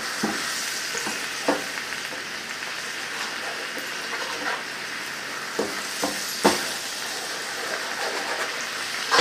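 Brown sugar caramel sauce with butter, milk and nuts sizzling steadily in a pan over a high flame as the sugar melts, while it is stirred, the spoon knocking against the pan several times.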